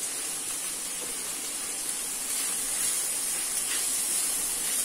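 Chopped mixed vegetables sizzling steadily as they sauté in a kadhai, a little louder partway through as a wooden spatula stirs them.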